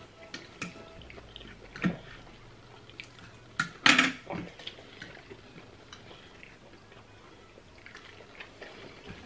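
Eating sounds: wet chewing and mouth smacks with scattered light clicks, some of them plastic forks against glass plates; the loudest is a single sharp smack about four seconds in.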